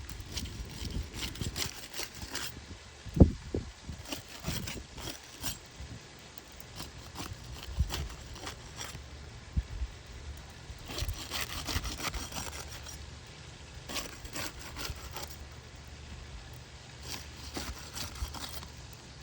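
Irregular scraping and rubbing strokes, like a hand tool working on wood, in several bursts, with one loud knock about three seconds in.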